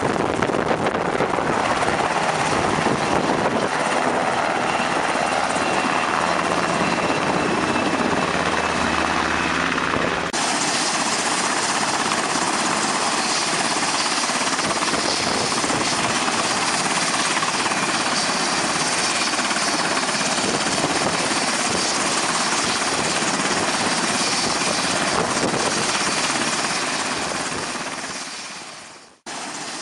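Remote-control model Black Hawk helicopter running, its spinning rotors making a steady whirring noise. The sound changes abruptly about ten seconds in and fades away near the end.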